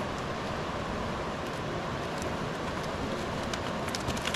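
Steady rushing of flowing river water, with a few sharp clicks near the end.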